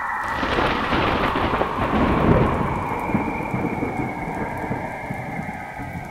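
A surge of crackling, rumbling noise that swells for about two seconds and then fades, over a steady droning hum.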